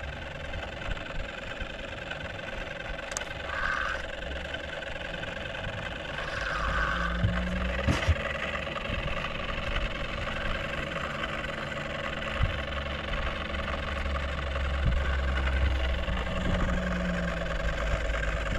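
An outboard motor running steadily at low revs, its low rumble swelling from about six seconds in.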